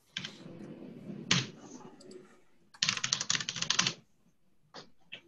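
Computer keyboard typing: a sharp keystroke about a second in, then a fast run of keystrokes lasting about a second near the three-second mark.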